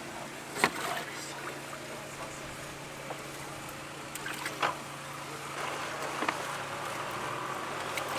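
A boat motor running steadily at low speed, a constant low hum, with two short sharp knocks about a second in and about four and a half seconds in.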